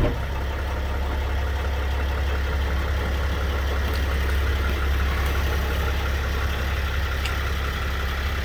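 Mercedes Sprinter van's engine running steadily at idle with a low hum while the van is backed up slowly in reverse. A couple of faint ticks come about four and seven seconds in.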